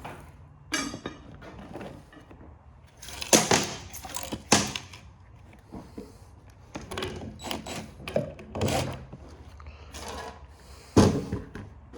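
Irregular metal clanks and knocks, about half a dozen, as tools and parts are handled on a t-shirt printer's sheet-metal frame during disassembly.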